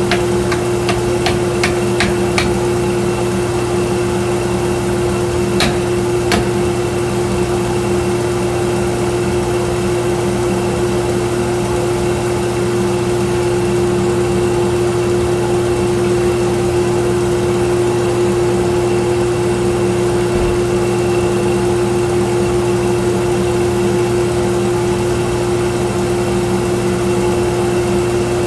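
1x42 belt sander running steadily with a constant motor hum, and a few sharp clicks in the first seven seconds.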